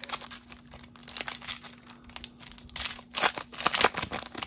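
Foil wrapper of a Topps Chrome baseball card pack crinkling in the hands and being torn open, with the loudest crackling near the end. A faint steady hum sits underneath.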